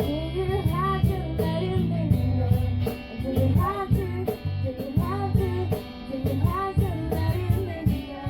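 Acoustic jam: a voice sings a melody in repeated phrases over strummed guitar, with low bass notes and a steady beat.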